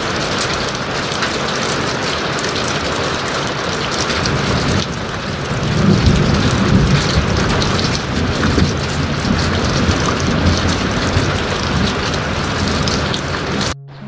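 Heavy rain pouring down, with a deep rumble of thunder rolling through from about the middle. The storm sound cuts off suddenly near the end.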